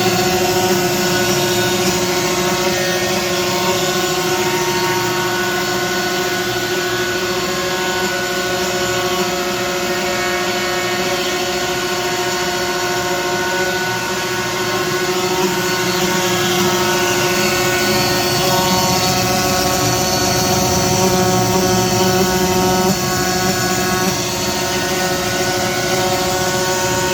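Avid CNC router running steadily while it cuts a bamboo board, a constant machine whine of several steady tones over a noisy hiss.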